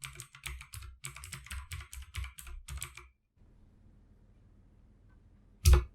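Typing on a computer keyboard: a quick run of keystrokes for about three seconds, entering an email address at an installer prompt, then a pause and one louder single key press near the end.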